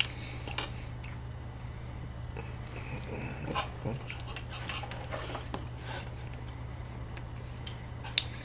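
Soft, scattered chewing and mouth sounds of eating muffins, with small clicks, over a steady low hum.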